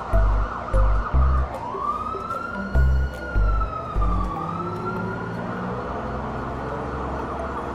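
Police siren wailing in one slow rise and fall, then sweeping up and down faster near the end. Under it, background music with a heavy bass beat stops about four seconds in.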